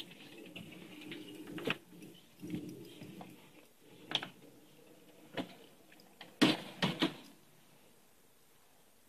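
Handling noise from a handheld camera carried through a house: rustling, then single sharp knocks and clicks every second or so, the loudest a quick cluster of three knocks about six and a half seconds in.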